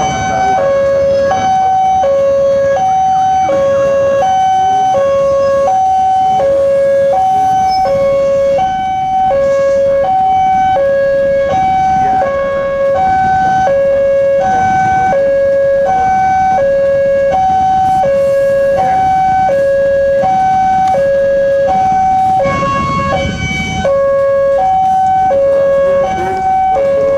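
Electronic two-tone warning alarm of an Indonesian railway level crossing, switching evenly between a higher and a lower tone about every three-quarters of a second. It signals that a train is approaching and the crossing is closing.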